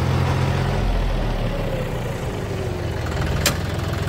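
John Deere 5050D tractor's three-cylinder diesel engine coming down from working speed to an even, pulsing idle as the rotavator is stopped, with a whine falling in pitch as the machinery slows. One sharp click about three and a half seconds in.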